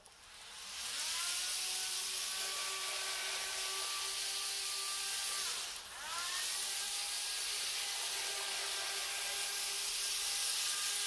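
N-gauge model train running under power: a steady electric whine with several held pitches that swells in over the first second. About six seconds in it dips, the pitches sliding down and back up.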